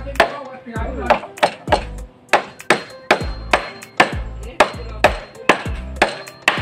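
Claw hammer driving nails into a wooden boat frame, striking steadily about twice a second with a short pause about two seconds in; many blows land with a low thud.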